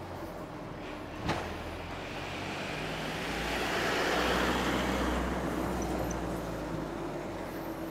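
A box truck passes close by on the road. Its engine and tyre noise swell to a peak about halfway through and then fade, over steady road noise and a low hum. There is a single sharp click about a second in.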